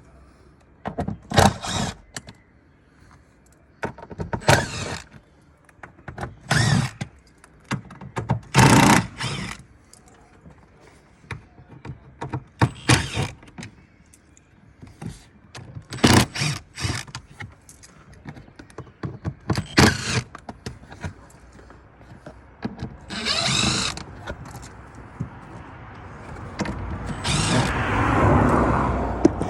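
Hand tools working on 10 mm bolts in a car's HEPA filter cover: scattered, irregular clicks and knocks as the bolts are undone and handled. Near the end comes a longer scraping, rustling stretch.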